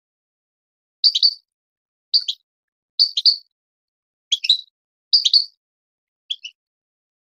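Moroccan goldfinch singing: six short, high chirping phrases, about one a second, with silence between them.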